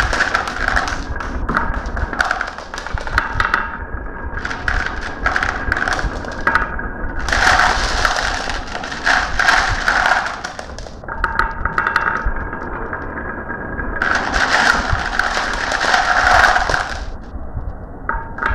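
Marbles rolling and clicking along a marble run track, with many sharp taps. Two long stretches of dense clatter come about seven and fourteen seconds in, as many marbles pour down together.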